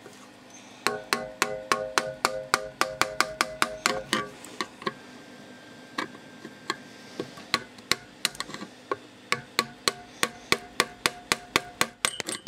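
Steel screwdriver blade tapping and prying at the solder-sealed metal lid of a ceramic chip package: a run of sharp metallic clicks, about three or four a second, each with a short ring. The clicks thin out midway and pick up again toward the end as the blade works into the hard solder seal.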